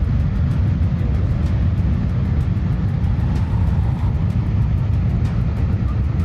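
Rocket engine firing on a ground test stand: a loud, steady, unbroken low rumble.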